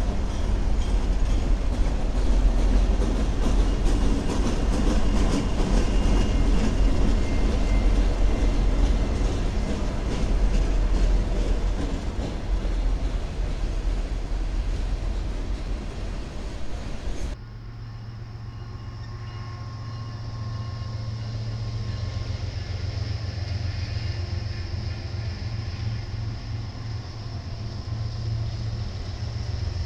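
Freight train passing close by: diesel locomotives and freight cars rolling past, wheels clacking on the rails. About 17 seconds in the sound cuts abruptly to another passing diesel freight train, with a steady low engine drone.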